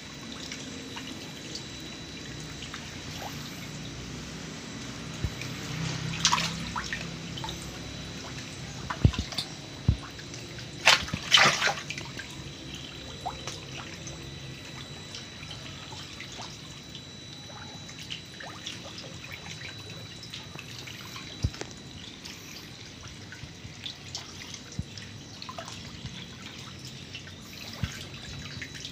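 Shallow water splashing and trickling as a crowded mass of lele dumbo catfish stir at the surface of a round pond, with a few louder splashes in the first half.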